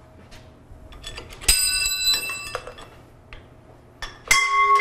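Two sharp clanks of steel tools or parts striking the robot's steel parts, one about a second and a half in and a louder one near the end, each leaving a bell-like ring. Light tool clicks come before them.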